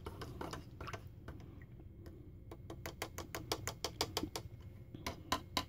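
Plastic spoon stirring a drink in a plastic cup, ticking against the cup's side in a quick, even run of light clicks that grows denser about halfway through.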